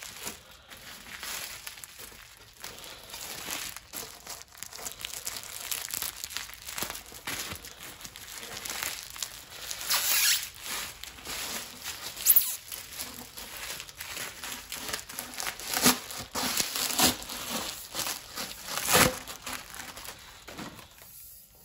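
Clear plastic wrapping crinkling and rustling as a wrapped part is unwrapped by hand, with irregular sharp crackles and a few louder crinkles along the way.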